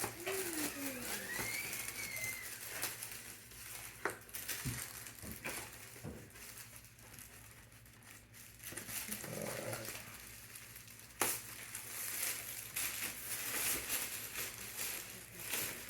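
Plastic packaging and foam wrap crinkling and rustling as they are handled and pulled apart, with a few sharp clicks, the clearest about eleven seconds in.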